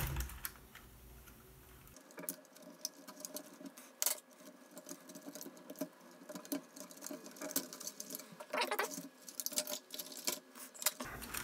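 Small scattered clicks and scratches of a thin metal pick working the plastic wire connectors and circuit board inside a Roborock S7 robot vacuum, with a sharper click about four seconds in and a run of clicks near the end as the board is lifted.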